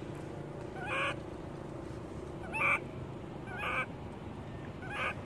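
Baby long-tailed macaque crying: four short, high, wavering cries a second or so apart, over a steady low hum.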